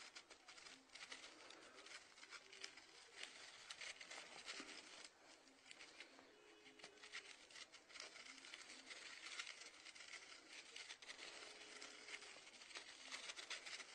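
Near silence: faint hiss and crackle, with two faint one-second tones about five seconds apart, the ringback of a mobile phone's outgoing call still ringing.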